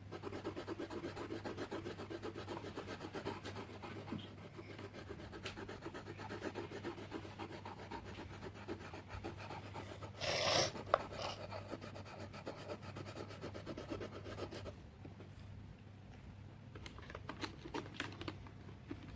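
Coloured pencil scribbling fast back and forth on paper, a rapid scratchy rubbing; it turns fainter and sparser about three-quarters of the way through. A short breathy burst of noise comes about halfway.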